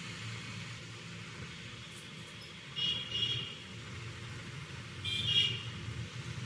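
Steady low rumble of road traffic, with two short, higher-pitched tonal sounds about three and five seconds in.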